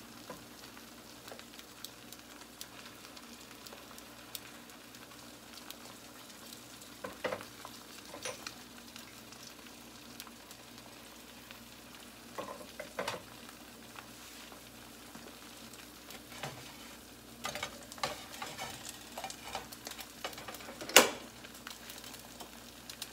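Fried eggs sizzling in a nonstick skillet on an electric coil burner: a steady frying hiss with scattered pops and crackles. Near the end comes one sharp clack, the loudest sound, as a spatula is handled.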